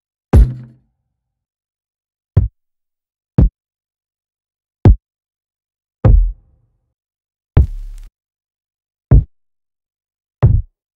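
Hip hop kick drum one-shot samples played one after another: eight separate kicks with gaps of one to two seconds, each a short hit, a few with a longer low tail.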